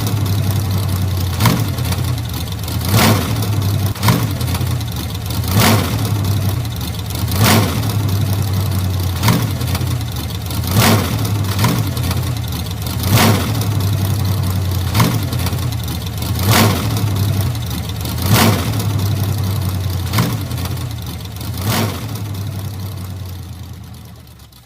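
1940s car engine running at idle, with a sharp louder pulse every second and a half to two seconds. It dies away near the end as the engine is shut off.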